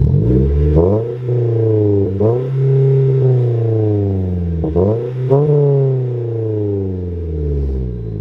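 2021 Toyota Corolla hatchback's 2.0-litre four-cylinder engine, fitted with a 2J-Racing cat-back exhaust and mid-pipe, revved several times in quick blips, each rising sharply and then falling slowly back toward idle.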